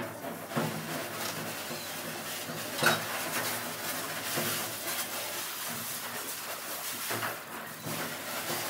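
Grooming scissors snipping through a small dog's coat: a run of light metallic clicks, with one sharper click about three seconds in, over a steady hiss.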